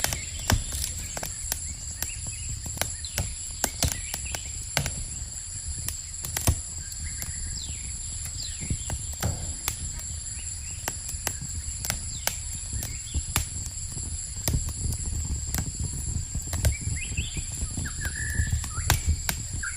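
Footsteps on a hiking trail: irregular sharp crunches and clicks, over a steady low rumble of wind on the microphone. A few faint high chirps come in near the end.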